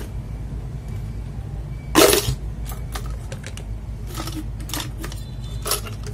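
Plastic clicks and clacks of parts being pulled off a mechanical keyboard, one loud clack about two seconds in and several lighter clicks after it, over a steady low hum.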